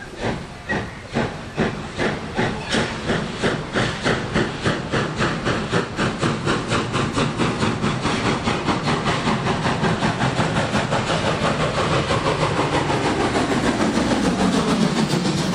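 Steam locomotive 97 501 working hard as it pulls away with its train, exhaust chuffing in a steady rhythm. The beats start at about two a second, quicken until they nearly run together, and grow louder as the engine comes close near the end.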